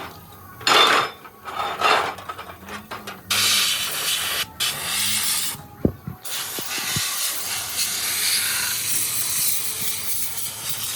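Loud hissing: two short blasts, then longer spells from about three seconds in that run almost unbroken through the second half, with a few sharp knocks around the middle.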